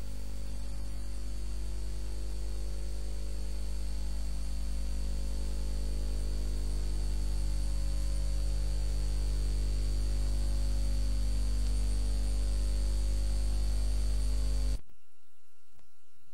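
Steady electrical mains hum with a stack of evenly spaced overtones and a thin high whine above it, cutting off abruptly near the end.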